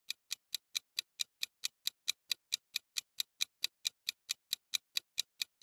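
Ticking clock sound effect, evenly spaced sharp ticks at about four to five a second, used as a quiz countdown timer while the listener guesses.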